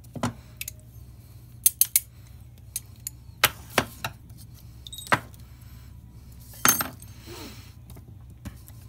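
Small steel gearbox parts (gear, shaft and roll pins of a brake lathe's disc feed gearbox) clinking and tapping against each other and the bench as they are handled, a series of irregular sharp clinks.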